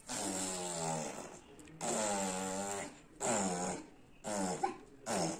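A young child's voice making a run of wordless, breathy vocal sounds, five in a row: two drawn out, then three shorter ones that drop in pitch at the end.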